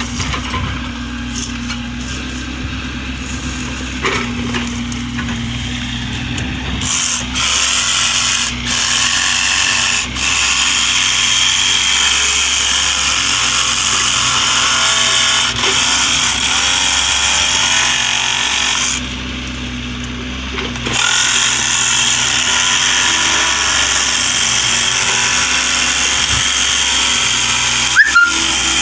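Battery-powered saw cutting through PVC pipe. It runs steadily from about seven seconds in, stops for about two seconds past the middle, then starts again. A lower hum comes before it starts.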